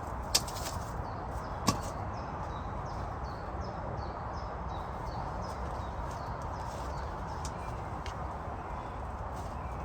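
Two sharp wooden knocks about a second and a half apart, logs or stakes being struck or dropped, over a steady outdoor hiss. A small bird calls faintly in a quick repeated series in the background.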